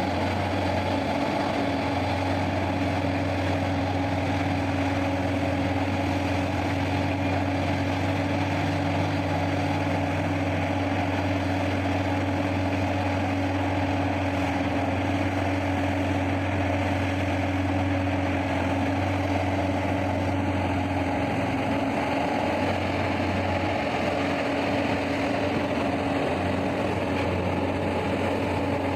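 Large diesel engines of heavy mining machinery running steadily at an even speed, a constant drone with a deep hum and a mid-pitched tone, with no revving or impacts.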